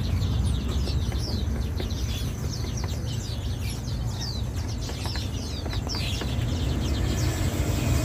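Many small songbirds packed in shipping boxes, chirping at once: a busy stream of short down-slurred chirps over a steady low rumble.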